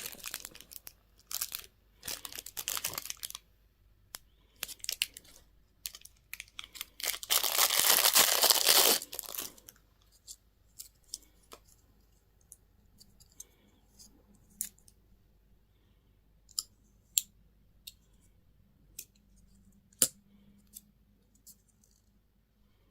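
Candy wrapper being torn and crinkled in bursts, the loudest lasting about two seconds near the middle, followed by scattered small clicks and taps.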